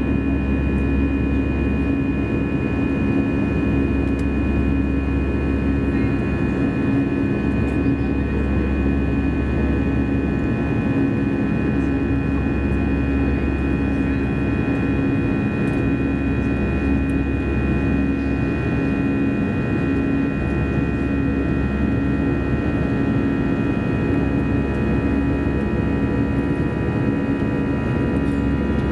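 Cabin noise of an Airbus A320-214 in flight: a steady drone of airflow and CFM56 engines, with several constant whining tones laid over a low rumble.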